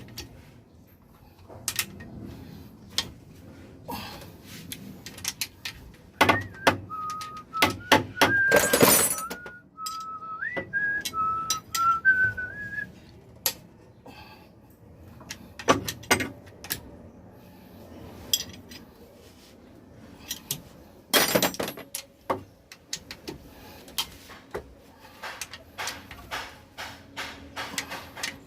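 A person whistling a short stepping tune for several seconds, among scattered clinks and knocks of metal tools and engine parts being handled during an engine teardown.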